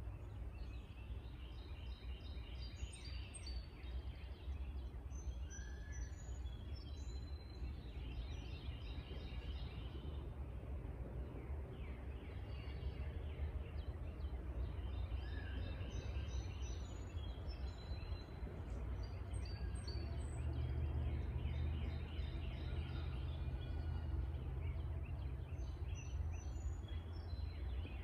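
Songbirds singing in short, repeated trilling and chirping phrases every few seconds, over a steady low rumble of outdoor background noise.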